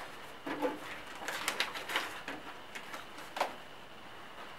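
Paper rustling and crinkling as an award envelope is opened and the card inside is unfolded, in irregular faint crackles, with a sharper crackle about three and a half seconds in.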